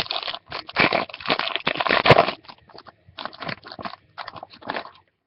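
A foil trading-card pack wrapper being torn open and crinkled in irregular bursts, with the cards handled, dying away near the end.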